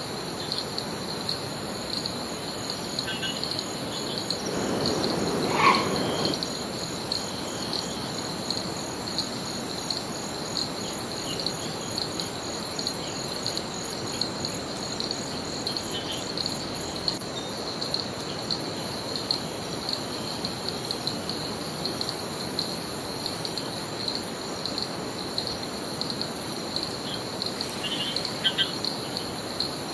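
Rainforest insects chirring steadily and high, with a few short bird chirps; a louder swell of noise rises and falls about five seconds in.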